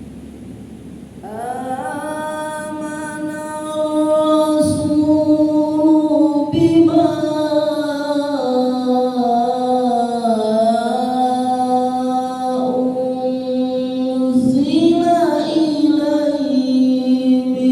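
Qur'an recitation: a single voice comes in about a second in and holds a long, drawn-out melodic line, sustaining notes with slow turns and ornaments in pitch.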